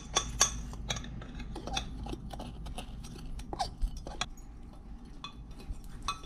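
Spoon stirring dry cake mix of flour, sugar and cocoa powder in a ceramic mug, with irregular clinks and scrapes against the mug's inside.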